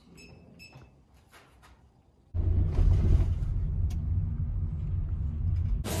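Two faint light clinks over quiet room sound. A little over two seconds in, a loud, steady low rumble starts abruptly.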